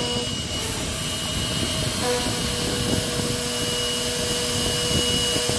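CNC router spindle driving an 8 mm two-flute end mill through a slot in 16 mm 5083 aluminium alloy plate, 1 mm deep per pass: a steady high spindle whine with steady lower tones over the rasping of the cut, growing louder about a second in.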